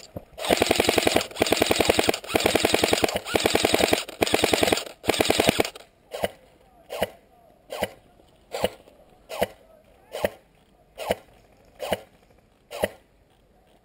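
Airsoft guns firing: an automatic-electric machine-gun replica lets off several long full-auto bursts of fast clicking shots for the first five or six seconds. After that come quieter single shots, about one every 0.8 seconds.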